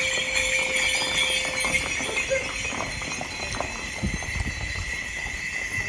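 Several horses galloping on a packed dirt street: a rapid, irregular clatter of hoofbeats.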